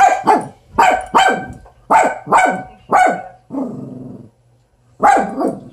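Dog barking excitedly at a lizard it sees through a window: a rapid run of about seven sharp barks, a brief low growl, then two more barks near the end.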